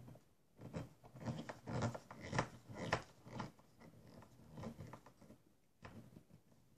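Small screwdriver turning a screw into the laptop's bottom cover: a run of irregular clicks and scrapes, busiest in the first half and thinning out towards the end.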